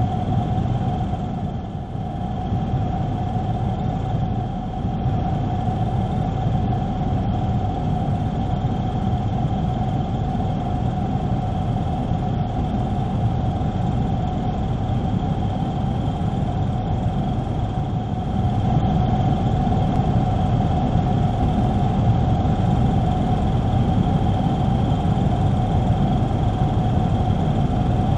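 Helicopter engine and rotor noise: a steady drone with a constant whine over a low rumble, a little louder from about eighteen seconds in.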